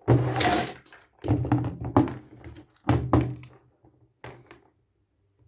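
Dull thunks and knocks, about four in the first three seconds, as steel smooth rods and the X-axis carriage of a 3D printer are handled against a wooden table, then a few light taps.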